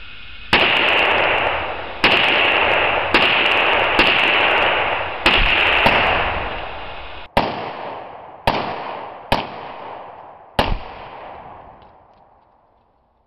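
A rapid string of AR-15 rifle shots fired through a muzzle brake, mixed with the boom of an exploding target. There are about ten loud reports, each ringing out in a long echo. The last four are more spaced out and die away toward the end.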